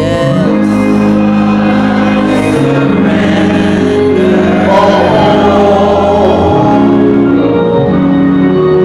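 A church congregation singing a slow hymn of invitation over long held organ chords.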